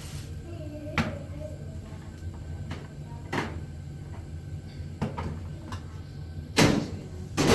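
A series of sharp knocks, five or so spaced a second or two apart, the two loudest near the end, over a steady low hum.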